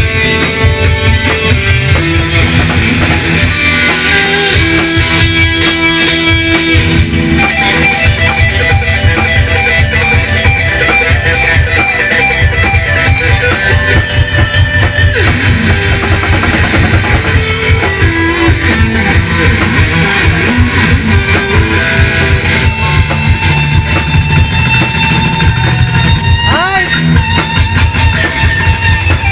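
Live band playing an instrumental rock piece with electric guitar, bass and drum kit, keyboard and percussion in the mix, the guitar bending notes near the end.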